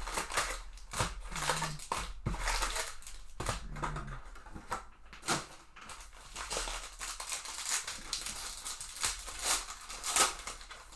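Plastic card-pack wrapping crinkling and tearing in irregular crackles as a hobby box and its packs of trading cards are opened.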